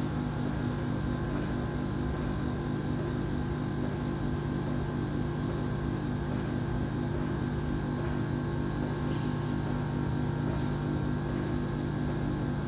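Refrigeration compressor of an ice cream cold plate running with a steady low hum.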